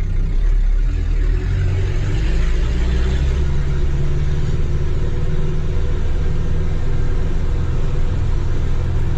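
Heard from inside the cab of a Toyota Hilux pickup on the move: the engine runs steadily under a low rumble of tyre and road noise.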